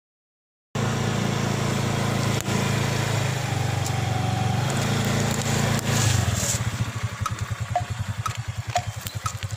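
Motorcycle engine running steadily, starting abruptly under a second in, then from about six seconds falling into a slower, uneven idle with separate firing pulses, as the front tyre rolls over plastic jelly cups and crushes them. A sharp crack comes about two and a half seconds in.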